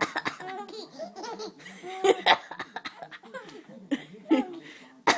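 Baby laughing in repeated bursts, set off by her mother's coughing, with louder bursts about two seconds and about four seconds in.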